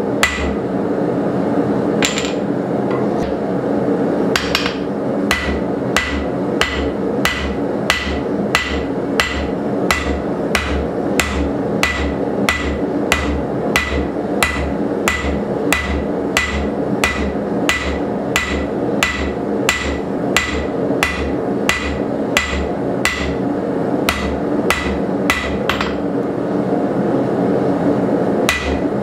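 Blacksmith's hand hammer striking a red-hot coil-spring steel bar on an anvil, drawing it out into a taper for a punch. The ringing blows are sparse for the first few seconds, then come in a steady run of about two to three a second.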